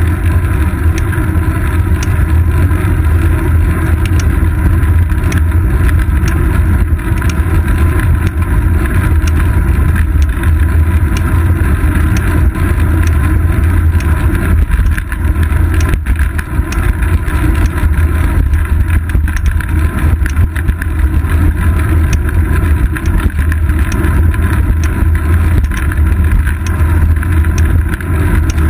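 Steady wind rush and road rumble from a moving road bicycle, picked up by a GoPro Hero 2 mounted on the seat post. Heaviest in the low end, with the wind buffeting the microphone.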